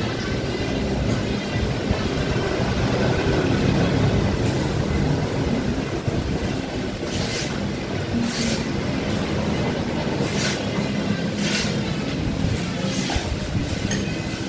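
Steady rumble of street traffic with engines running. A few sharp clinks of cutlery on plates come in the second half.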